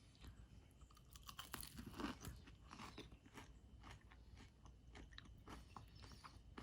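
A person chewing a sauced chicken wing, faint, with irregular small crunchy clicks.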